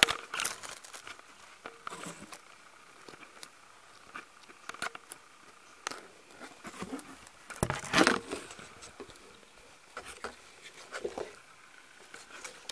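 Intermittent rustling, crinkling and small clicks as stuffed-toy clothes and their packaging are handled and set down, with a louder rustle or knock about eight seconds in.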